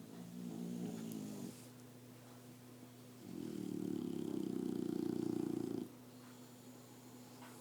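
Boxer dogs snoring: a short snore at the start, then a longer, louder one about three seconds in.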